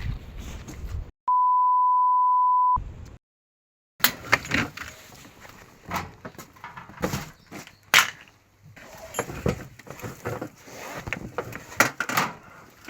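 A steady, pure beep lasting about a second and a half, set between stretches of dead silence. After it come irregular clicks and light metallic knocks of hand-tool work on the car.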